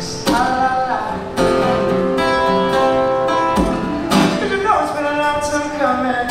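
A man singing and strumming an acoustic guitar, amplified through a small PA speaker, with some long held sung notes.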